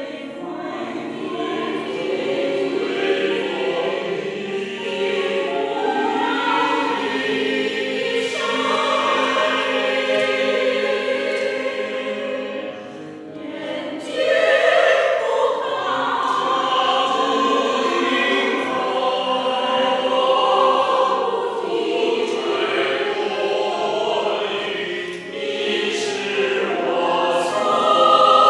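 Mixed choir of men's and women's voices singing in parts, with a short break about halfway through before the voices come back in louder.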